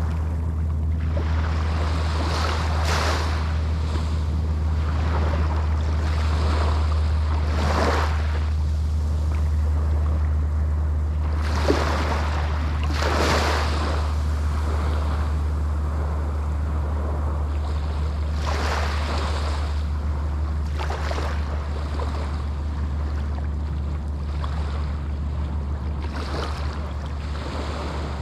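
Small Atlantic waves breaking on a sandy beach, each swash rushing in every few seconds over a steady low rumble.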